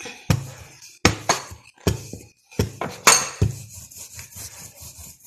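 Kitchenware being handled on a counter: a quick series of about seven sharp knocks and clinks, each with a dull thud against the surface.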